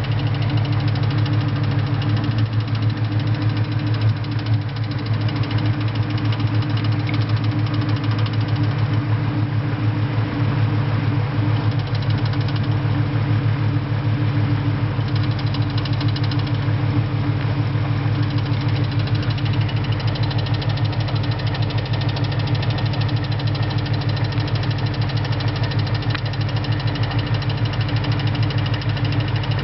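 2001 Mustang Cobra's 4.6-litre DOHC V8 idling steadily with a fast, even clicking over the engine note, which the owner suspects is the clutch throwout bearing.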